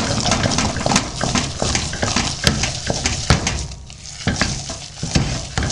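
A wooden spoon beats thick, sticky cheese-curd paste vigorously in a stainless steel pot. The spoon knocks irregularly against the pot, with a brief lull a little past the middle. This is baking soda being worked into the cooked curd to aerate it.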